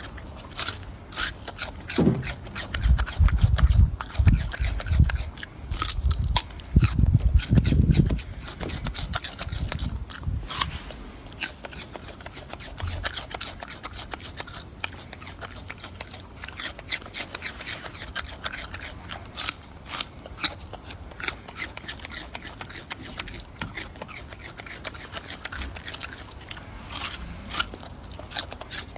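Golden snub-nosed monkey chewing berries: a run of irregular crunchy, smacking clicks all the way through. Between about two and eight seconds in come loud low rumbling thumps.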